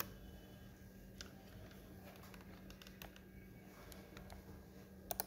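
Faint, isolated clicks from working a computer, with a quick pair near the end, over a steady low hum.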